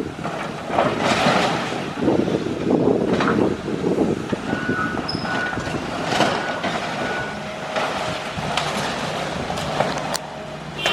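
Demolition machinery working rubble: a steady run of crunching and clanking debris, with short high electronic beeps sounding on and off.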